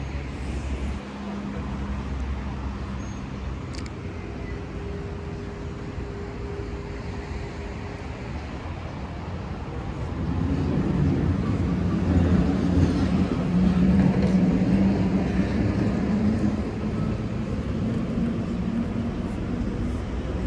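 City street traffic: cars passing on a multi-lane road, a steady hum of engines and tyres that grows louder about halfway through.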